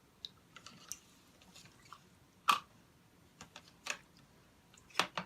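Small plastic toy figures and playset pieces clicking and knocking together as they are handled: a scatter of sharp taps, the loudest about two and a half seconds in and twice more near the end.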